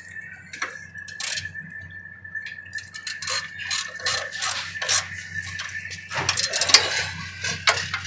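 Socket ratchet with a 9/16 socket clicking in short, irregular strokes, with metal clinks, as a nut is tightened down on the bolt of a steel battery lock bar.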